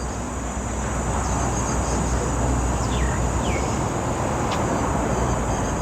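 Outdoor park ambience: a steady low rumble of road traffic, easing a little after about four seconds, under a steady high insect drone, with a few faint falling bird chirps about three seconds in.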